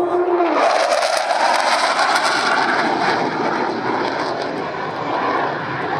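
Hawker Hunter jet fighter's Rolls-Royce Avon turbojet roaring loudly as it passes, with a tone that drops in pitch about half a second in.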